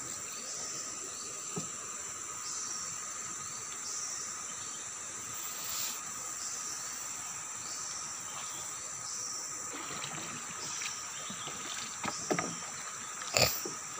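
Steady chorus of insects from the riverside forest, a continuous high-pitched drone. Near the end come a few short knocks, the loudest just before the end, as the net and fish are handled in the wooden boat.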